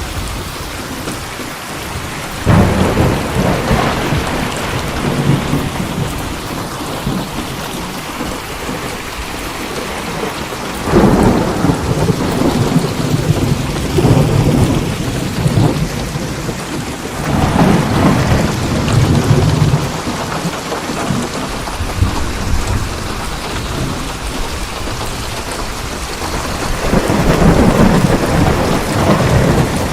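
Steady rain falling, with four rolls of thunder that each break in suddenly and rumble for several seconds before fading back into the rain.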